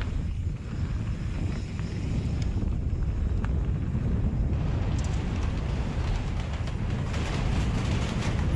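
Mountain bike rolling down a dirt trail, with wind noise on the microphone and the tyres and bike rattling. About halfway through, a denser clatter sets in as the tyres run onto the planks of a wooden bridge.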